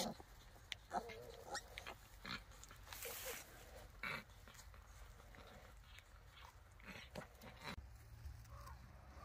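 Newborn piglets squeaking and grunting faintly while they nurse at the sow, with short squeaks mostly in the first couple of seconds.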